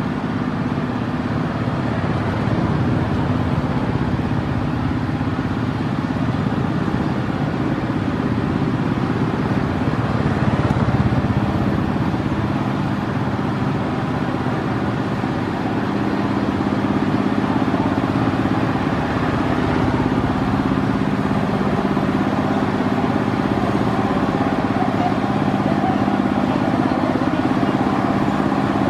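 A small engine running steadily, giving a constant low hum that swells slightly after about sixteen seconds.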